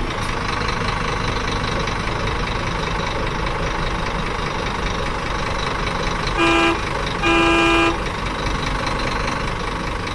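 A truck engine running steadily, with two loud horn blasts a little past the middle, the second slightly longer than the first.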